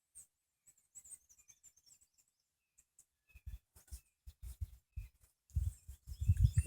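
Faint bird chirps, then a run of irregular low thumps and knocks that grow louder over the last few seconds.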